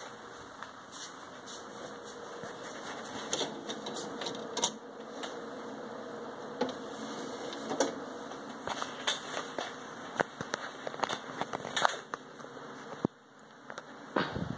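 Scattered clicks and knocks of a DVD being handled and loaded into a desktop computer's disc drive, over the computer's steady hum.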